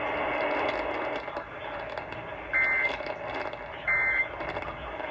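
Emergency Alert System end-of-message data bursts over the radio: two short two-tone buzzing bursts about a second and a half apart, marking the end of the weather warning, preceded by steady radio hiss.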